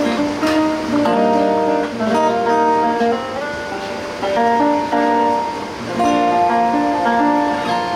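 Music led by strummed acoustic guitar, with a melody of held notes changing every half second or so.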